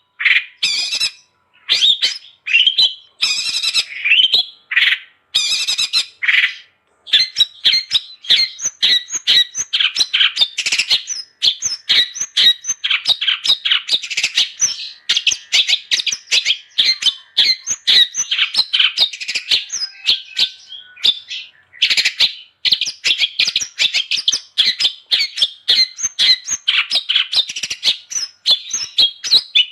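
Long-tailed shrike (cendet) singing hard: a fast, chattering run of scratchy notes. It comes in short separate phrases for the first several seconds, then turns into an almost unbroken stream, with one brief pause a little past twenty seconds.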